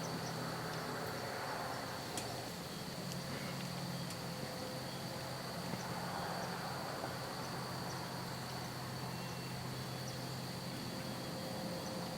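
Steady outdoor ambience: a constant high-pitched insect-like whine over a low, distant engine-like hum that fades and returns, with a few faint clicks.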